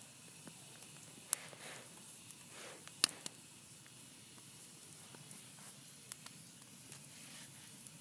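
Log campfire burning with a steady low hiss and scattered sharp crackles and pops, the loudest about three seconds in.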